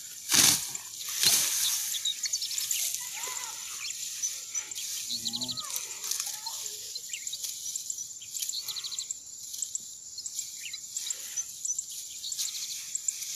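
Dry cogon grass rustling and tearing as clumps are pulled up by hand, with two loud rustles about half a second and a second and a half in, then softer rustling. Behind it a steady high insect drone and many rapid chirping trills.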